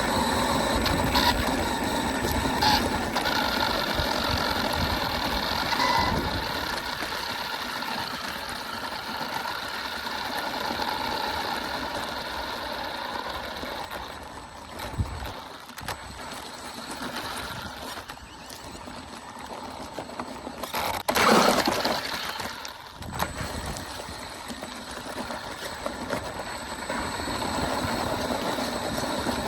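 Hosim X07W radio-controlled car's brushless electric motor whining as it drives over rough ground, with tyre and gravel noise, fading and returning as it moves about. About two-thirds of the way through there is a brief loud surge.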